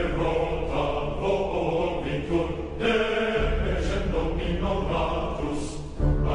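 Chanted choral music: several voices holding and shifting sung notes.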